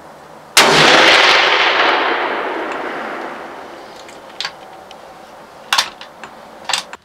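A single loud hunting-rifle shot about half a second in, its echo rolling away over the next few seconds, followed by a few short sharp clicks.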